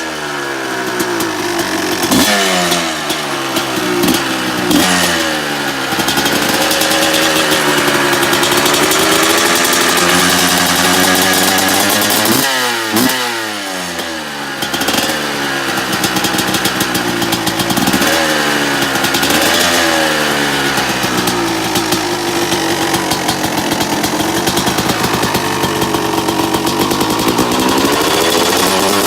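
The two-stroke single-cylinder engine of a 2002 Honda CR250R, breathing through an FMF pipe and a custom shorty silencer cut down from the stock one, is blipped again and again in quick rises and falls of revs. Between the blips are longer stretches held at higher revs, where the pitch wavers up and down.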